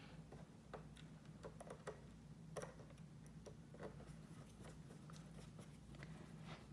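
Faint, irregular small clicks and ticks of a screwdriver turning a tight screw into a laptop's plastic bottom panel, over a low steady hum.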